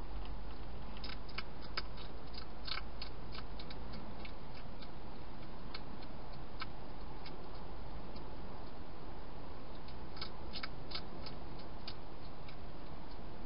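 Wild hedgehog crunching dry food in a plastic feeding box: clusters of sharp clicks about a second in and again around ten seconds in, over a steady hiss and low hum.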